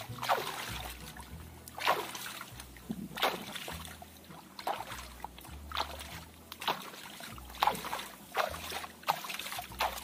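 Hands scooping and splashing water in a shallow muddy ditch, about ten splashes a second or less apart, as someone washes in it.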